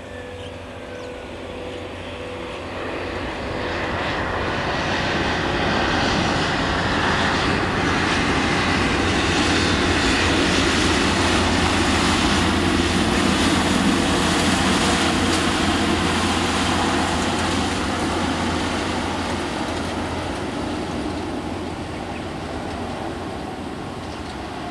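Jet engines of an AirAsia Airbus A320 on its landing rollout: a broad roar that swells over several seconds, is loudest about halfway through, then fades as the airliner slows down the runway.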